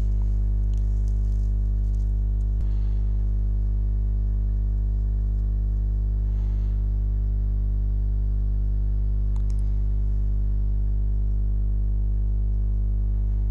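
Steady electrical mains hum, a low buzz that does not change, with a few faint clicks along the way.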